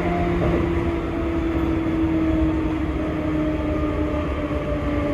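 Seibu 2000 series electric train's traction motors whining over the running noise, the motor tone sliding slowly down in pitch as the train slows.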